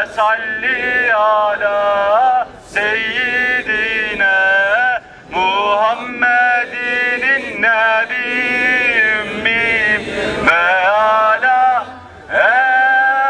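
A man singing an Islamic hymn in long, melismatic phrases with sliding, held notes and short pauses between phrases.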